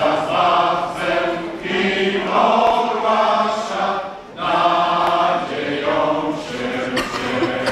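Men's choir singing a Polish Christmas carol in sustained phrases, with a short break for breath about four seconds in.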